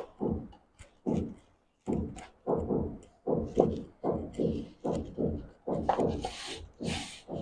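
A hand working a dry, crumbly mix of flour and curd into dough in a stainless steel bowl: a steady run of short pressing and rubbing strokes, about two to three a second. Near the end there are a couple of brighter, scraping rustles.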